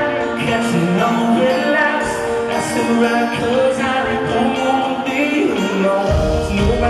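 Live rock band in an arena, heard from the crowd: a man singing lead over electric guitar and drums. The bass end grows much heavier about six seconds in.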